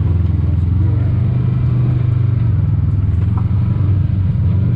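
Engine of an off-road side-by-side running steadily, a low even drone, as it drives along a rough dirt trail.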